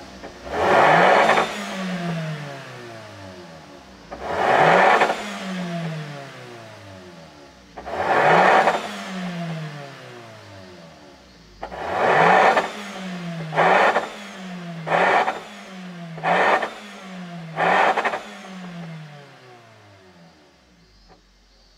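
Toyota Voxy ZRR80W's 2.0-litre four-cylinder engine free-revving through a BLITZ NUR-SPEC OVAL Ti quad-tip stainless and titanium exhaust. There are three longer revs about four seconds apart, then five quick throttle blips about every second and a half, each falling back toward idle. The sound dies away near the end.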